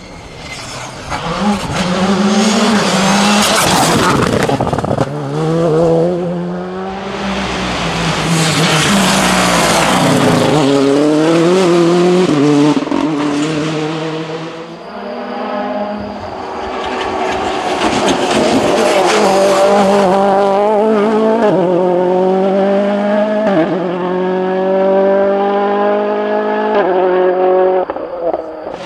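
Rally cars at full throttle on a tarmac stage, engines revving up and falling away as they brake and accelerate through corners. Near the end one engine climbs through the gears, its pitch rising and then dropping sharply at each upshift.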